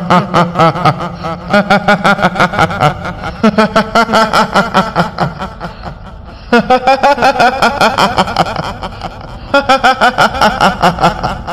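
A kuntilanak ghost's high-pitched 'hihihi' cackling laugh, in the voice of a woman. It comes in four long bouts of rapid pulses, about six a second, each bout lasting about three seconds.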